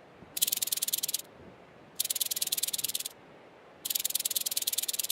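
Rattlesnake's rattle shaking as a warning: three bursts of fast, even rattling, each about a second long, with short pauses between.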